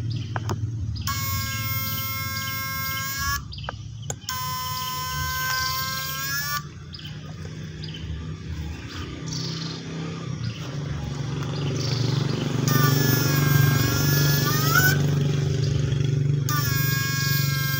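Homemade PAC electric fish shocker buzzing with a high whine in four separate bursts of two to three seconds, each starting and stopping abruptly as it is switched on and off in the water. In the third burst the pitch sags and then climbs back. A steady low hum runs underneath.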